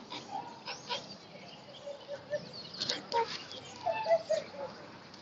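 Ducks, geese and other waterbirds calling together: many short squawks and honks overlapping, thickest from about three to four and a half seconds in.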